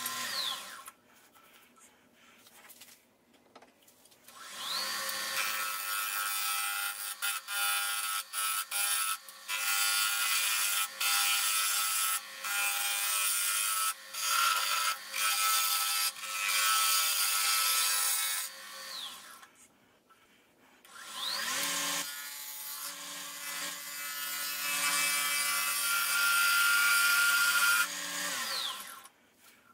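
Wood lathe turning a spoon blank while a gouge cuts it: a steady hissing scrape of the tool on the spinning wood, broken by short gaps where the tool lifts off. The lathe's motor winds up and down twice, with a pause between the two cutting runs.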